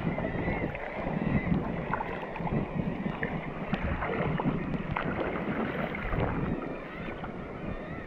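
Sea water sloshing and lapping around a camera held at the surface, with wind on the microphone. Over it comes a dense chorus of calls from a large flock of seabirds overhead.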